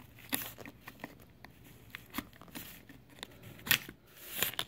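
Needle-nose pliers clicking and scraping against the plastic of a toner cartridge's chip slot as the small circuit-board chip is worked loose and pulled out, with a sharper click a little before four seconds in.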